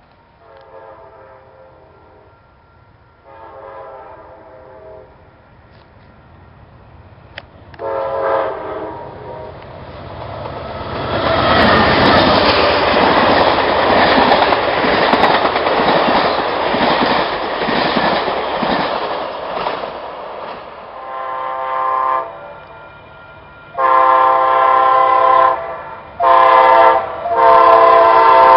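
Train horn blowing three blasts, then a passenger train of bilevel cars passing close with a loud rumble of wheels on rail. Near the end an Amtrak diesel locomotive's horn sounds four more blasts, each louder than the last, as it approaches.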